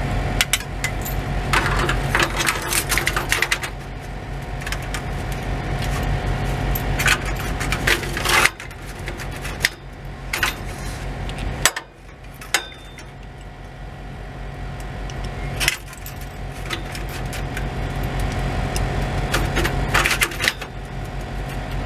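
Metal exhaust clamp hardware clinking and jangling in irregular bursts as the U-bolt clamp and its nuts are handled and fitted, over a steady low hum.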